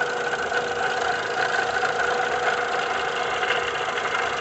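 Volkswagen Gol's 1.6 EA111 engine idling, with a steady whine from the back of the engine. The mechanic is certain the noise comes from a broken water-pump bearing.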